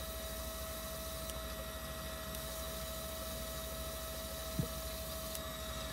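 Steady hum with a faint constant high whine, and one soft click about four and a half seconds in.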